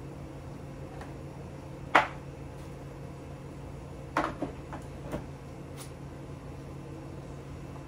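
A sharp knock about two seconds in, then a few lighter knocks and clinks around the middle, as kitchen containers and utensils are picked up and set down, over a steady low hum.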